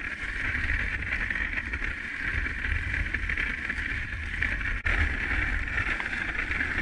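Dog sled running over a packed snow trail: a steady hiss and scrape from the runners, with a low rumble of wind on the microphone. The sound breaks off for an instant about two-thirds of the way through.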